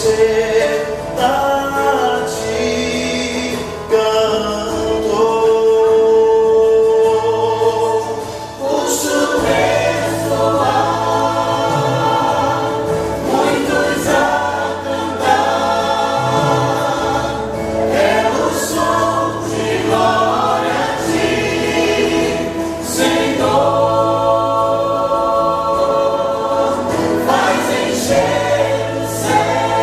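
A church choir singing a Portuguese gospel song with full sustained harmonies, a low bass part coming in about nine seconds in.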